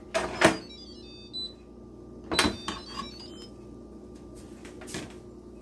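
Electric pressure cooker (Instant Pot) lid being twisted to unlock and lifted off the pot after pressure release. It gives a few sharp plastic-and-metal clicks and clunks, the loudest two near the start, over a faint steady hum.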